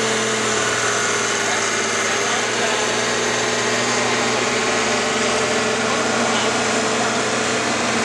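Pro Farm class diesel pulling tractors idling in the staging lanes, a steady engine drone, one engine's pitch easing down slightly in the first second.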